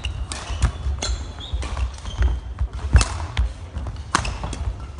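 Badminton on a sports hall court: shoes squeaking on the wooden floor, with several sharp racket-on-shuttlecock hits and knocks.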